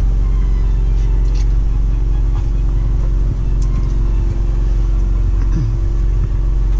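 Semi-truck's diesel engine idling steadily, heard from inside the cab, with a few faint clicks of a plastic fork in a foam takeout box.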